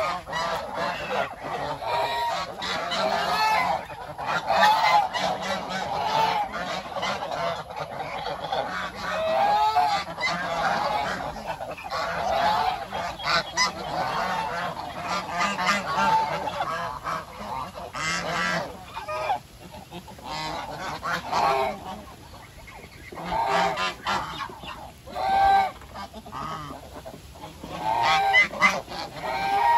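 A flock of domestic brown Chinese geese honking, many calls overlapping in repeated loud bursts, with short clicks and knocks in between.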